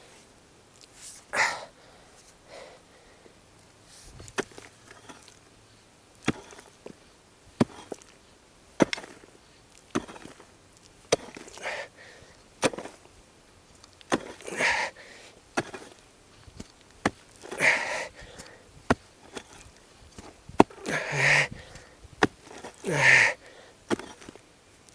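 A hand tool chopping and scraping into the ground, with irregular sharp knocks. Short, heavy breaths of effort come between them, more often in the second half.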